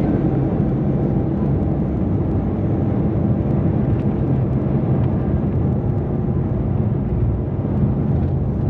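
Steady rumble of a moving passenger vehicle heard from inside, with a low engine hum.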